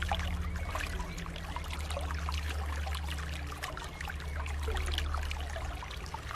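Flowing water trickling and splashing in many small, irregular droplets, with a low steady drone underneath that shifts in pitch a few times.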